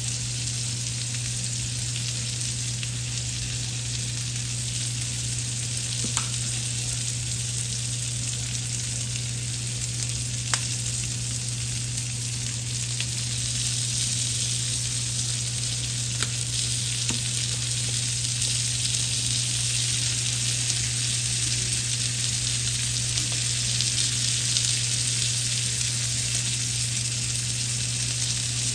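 Food sizzling steadily in a frying pan, with a few faint pops and a steady low hum underneath.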